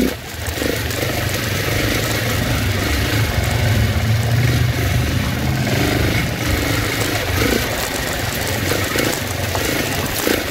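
Dirt bike engine running steadily at low speed while the bike rides over a rocky trail, a continuous low rumble with a rushing noise on top.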